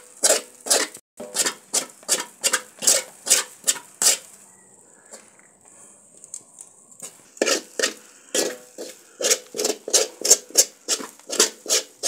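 A metal spoon scraping around a metal wok as it turns crumbly fermented-flour pieces, in rhythmic strokes of about two to three a second. The strokes pause for about three seconds in the middle.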